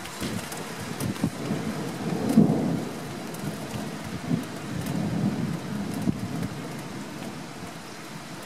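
Rain falling steadily, with scattered drops ticking, under a rolling rumble of thunder that swells about two seconds in and rumbles on more softly through the middle before dying away.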